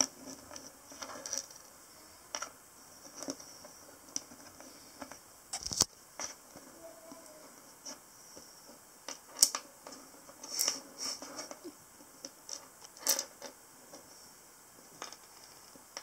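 Handling noise from a braided magnetic USB charging cable and its small metal tips on a wooden table: irregular light clicks and taps, with a few sharper clicks in the middle and later part, as the magnetic connector and tips are picked up and set down.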